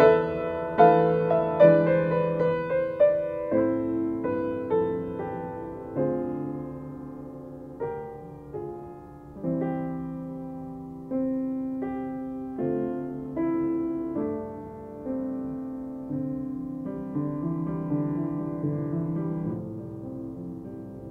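Solo piano on a Chickering upright, playing a slow piece of chords and melody with each note ringing out and fading. The playing grows sparser and softer toward the end.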